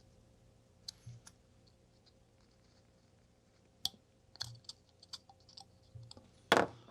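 Scattered small clicks and ticks of a carving knife cutting into a basswood block, with a louder knock near the end.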